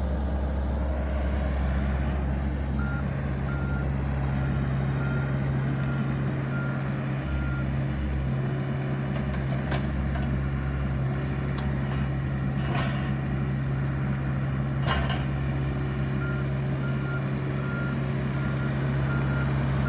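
Mini excavator engine running steadily under load, with a rapid beeping alarm coming on twice, early and again near the end. Two sharp cracks about two seconds apart, around two-thirds of the way in.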